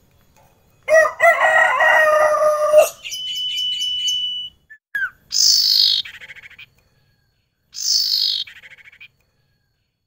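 A rooster crows for about two seconds, then ioras (sirtu) call: first a held high whistle, then twice a falling whistle that breaks into a fast rattling trill.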